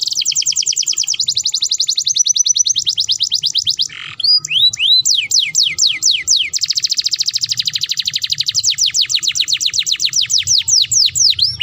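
Domestic canary singing fast trills: tours of rapidly repeated falling notes, about eight to ten a second, switching to a new note type every second or two. There is a short break about four seconds in, followed by slower curving chirps. The recording is presented as the call of a female canary in heat.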